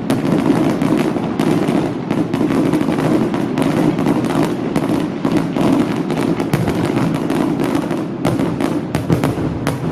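Fireworks display: a dense run of crackles and bangs from bursting shells over a continuous rumble.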